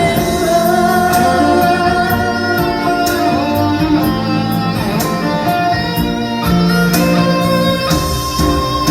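Live band music in an instrumental break of a pop love song, guitar carrying the melody over a steady drum beat.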